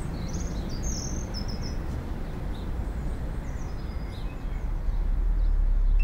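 Outdoor ambience: a steady low rumble with a few short bird chirps, about a second in and again around three to four seconds. A low drone swells in near the end.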